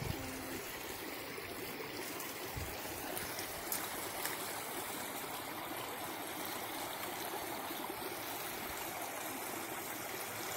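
A small brook flowing steadily: an even, unbroken rush of running water.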